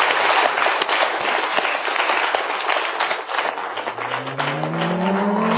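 Studio audience applauding, a dense even clapping. About four seconds in, sliding tones rising and falling across each other come in as the closing theme music starts.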